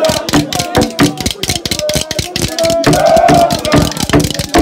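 Live percussion played fast, with many sharp strikes a second, and a voice singing held, wavering notes over it.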